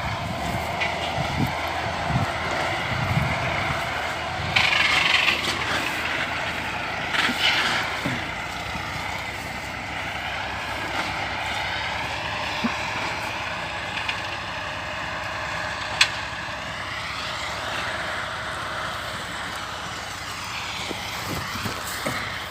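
Engines of two hay-mowing machines running together while cutting grass, their pitch slowly wavering up and down with load. A single sharp click about two-thirds of the way through.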